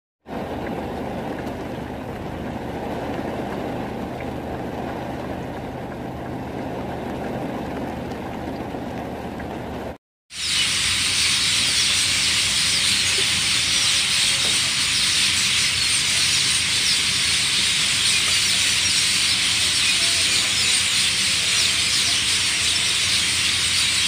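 A low, even rushing noise for about the first ten seconds. After a brief gap comes a louder, steady, dense high chorus of many birds chirping together at dusk.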